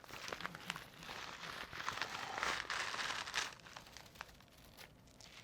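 Hands rummaging through crinkly confetti-like paper filler in a gift bag, rustling and crinkling with small crackles, stopping about three and a half seconds in.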